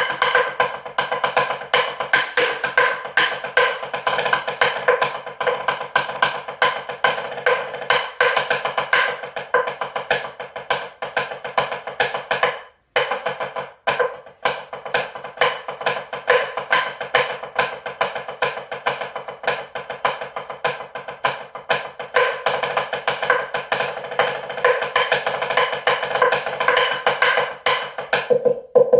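Music made of dense, rapid percussive clicks, cutting out briefly about halfway through.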